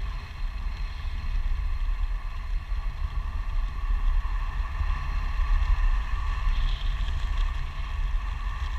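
Wind buffeting the microphone of a pole-mounted camera during a tandem parachute descent under an open canopy: a steady low rumble with a few steady higher tones over it.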